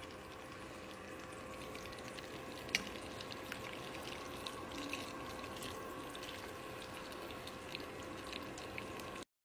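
Grape leaves being stirred in a pot of hot, slightly oiled water with a metal slotted spoon: a faint steady crackle and watery swish with scattered small clicks, one sharper click about three seconds in, over a faint steady hum.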